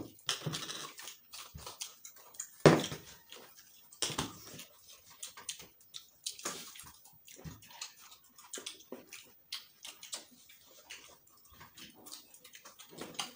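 People chewing and smacking their lips over fruit salad and sticky rice: irregular wet mouth clicks and smacks, with one louder sharp knock nearly three seconds in.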